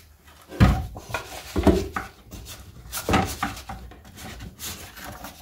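Wooden beehive box and frames being handled: a few dull wood-on-wood knocks, the strongest about half a second in and about three seconds in, with light rubbing and scraping between them as the box is tipped and the frames are checked.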